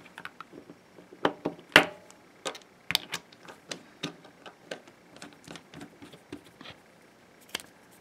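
Parts of a small aluminium flashlight handled and fitted together in the hands: scattered light clicks and taps of metal parts, the sharpest a little under two seconds in.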